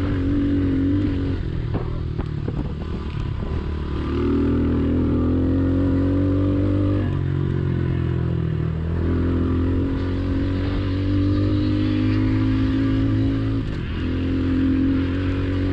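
Honda CRF110 pit bike's small air-cooled single-cylinder four-stroke engine running hard on a dirt track. Its pitch drops and climbs again a few times as the throttle is rolled off and opened up. There are a few rattling knocks about two seconds in.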